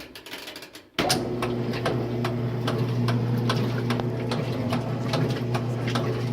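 Kenmore laundry center starting up about a second in and running with a steady hum, with sharp clicks repeating about twice a second: the abnormal clicking noise the machine has developed. A brief rustle comes before it starts.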